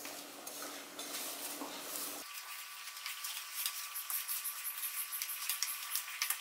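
Hands kneading khoya dough with arrowroot on a steel plate: faint rubbing and squishing of the dough against the metal, with many small ticks and scrapes, busier in the second half.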